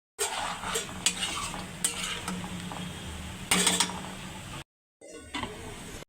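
A spoon stirring and scraping a pan of cooking minced chicken keema, with scattered clinks and a louder scraping stretch about three and a half seconds in. The sound cuts out abruptly at about four and a half seconds.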